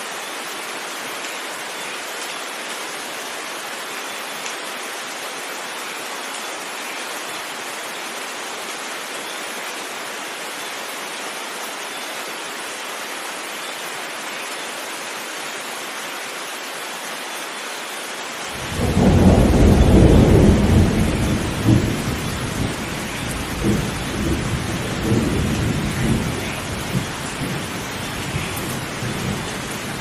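Heavy rain falling steadily in a thunderstorm. About two-thirds of the way through, a loud thunderclap breaks in suddenly, strongest for a couple of seconds, then rolls on in deep rumbles that swell and fade several times.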